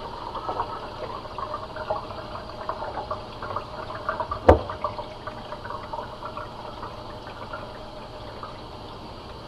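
Water trickling and splashing from a reverse osmosis unit's wastewater line draining into a sink, as the newly started system fills and flushes. A single sharp click about halfway through.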